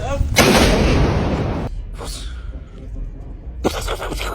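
Close lightning strike: a sudden sharp thunderclap about half a second in that fades for about a second and then cuts off abruptly, with a few fainter sharp cracks near the end.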